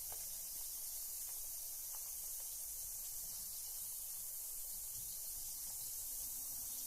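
Carbonated bath bomb fizzing in bath water: a steady high hiss of bubbles with a few faint crackles.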